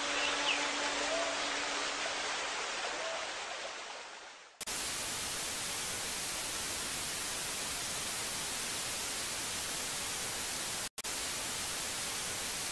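Faint outdoor ambience by a lake that fades out about four seconds in, then a sudden switch to steady static hiss, like white noise, with a brief dropout near the end.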